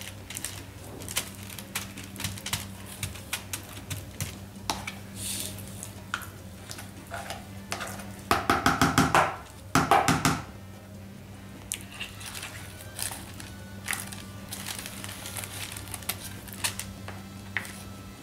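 A spoon spreads refried beans over a tortilla wrap on parchment paper: soft repeated scrapes, taps and paper crinkling. About eight and ten seconds in come two louder grating scrapes as the spoon scoops more beans from the bowl. A steady low hum runs underneath.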